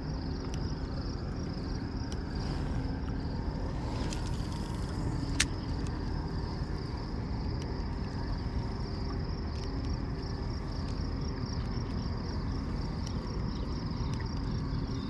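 Steady low rumble with insects chirping steadily in a high band, and one sharp click about five seconds in.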